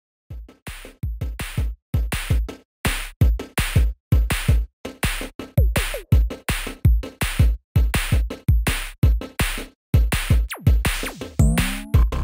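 Electronic music with a drum-machine beat of deep kicks and sharp hits, broken by short gaps, with a few sliding synth sweeps.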